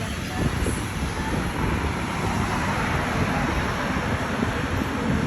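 Busy street traffic: a steady rumble and hiss of cars and other vehicles running on the road.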